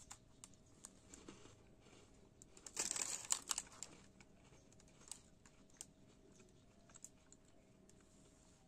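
Quiet chewing of a crunchy chocolate chip cookie: faint scattered mouth clicks, with a brief dense crackle about three seconds in.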